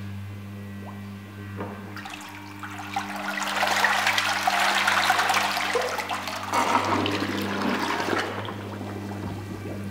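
Hot tub water churning and splashing at the surface for several seconds while the floating filter unit is lifted partly out of the water, then dying down as it is lowered back, over a steady low hum.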